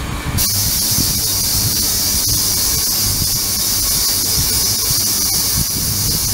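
Ultrasonic cleaning tank running, its liquid agitated: a bright steady hiss cuts in just after the start and holds, over a constant low rumble.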